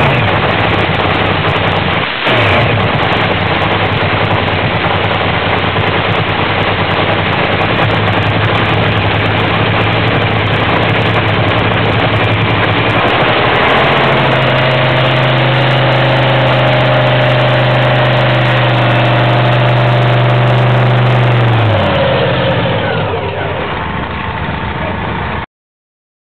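Nitro funny car engine warming up through open exhaust headers, running loudly with a quick throttle blip about two seconds in. About halfway through it is held at a higher, steady engine speed for several seconds, then its pitch drops away near the end.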